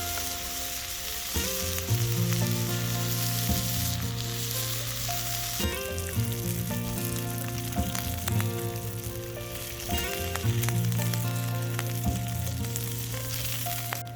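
Food sizzling as it fries in a pan, a steady crackling hiss, with background music of held notes and a bass line playing over it.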